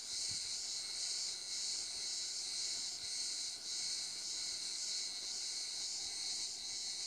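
A steady, high-pitched chorus of cicadas, wavering slightly.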